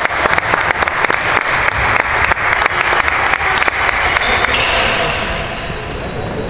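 Spectators clapping, dying down about five seconds in.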